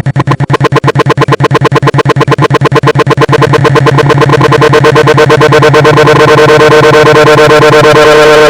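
A very loud, distorted edited sound effect: a short clip, likely a 'bruh' voice sample, stuttered about eight times a second and speeding up until the repeats run together into one steady buzzing tone.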